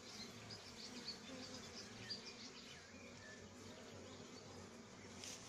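Honeybees buzzing faintly from an open hive: a low, steady hum that wavers slightly in pitch.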